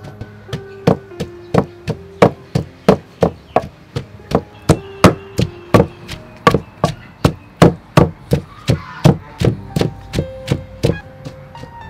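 Pestle pounding steadily in a mortar, about three strikes a second, each a sharp knock, with faint background music underneath.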